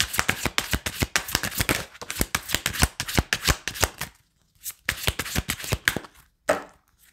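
A small deck of cards being shuffled by hand, a rapid run of flicking, slapping card sounds. It stops briefly about four seconds in, then resumes for another second or so.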